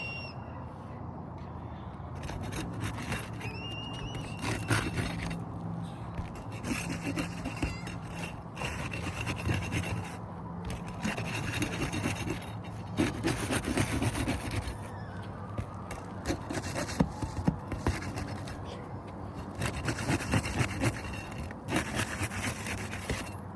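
Asphalt roof shingles scraped and rubbed in repeated uneven strokes as their adhesive tar strips are broken loose, so that the shingle nails can be reached.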